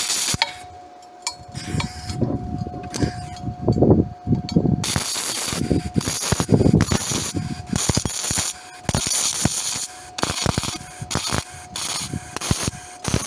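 MIG welder arc on aluminum, run with its usual wire and gas rather than argon, crackling and sputtering in short irregular spurts that stop and start.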